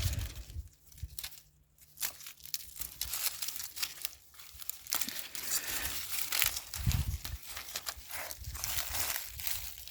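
Dry cowpea plants and pods rustling and crackling as they are handled and picked, in a string of short, irregular crinkly bursts, with a low bump about seven seconds in.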